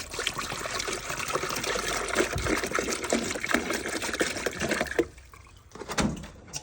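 Water being poured into a Cuisinart coffee maker's water reservoir, stopping about five seconds in, followed by a couple of light knocks.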